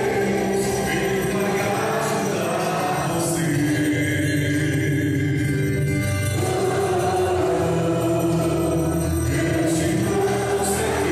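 A Christian devotional hymn: voices singing long held notes with instrumental accompaniment, changing phrase about six seconds in.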